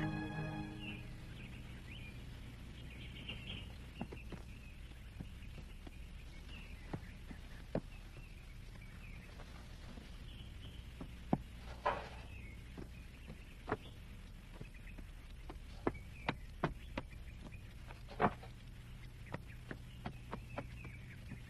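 Quiet rural ambience: faint bird chirps and scattered sharp clicks and knocks over a low steady hum.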